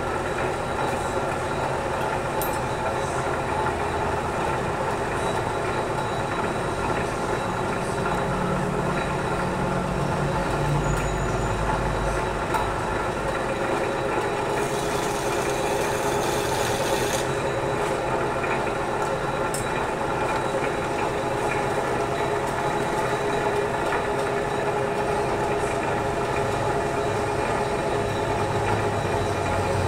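Large metal lathe running steadily, a many-toned mechanical hum as it turns a big steel air shaft under the cutting tool. A brief hiss comes about halfway through.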